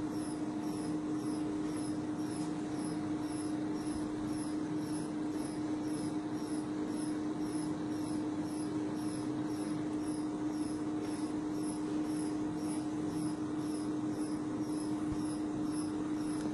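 Steady hum of the testing machine loading a carbon-textile reinforced geopolymer panel in four-point bending, with a regular high-pitched chirping pulse repeating through it. No cracking events are heard.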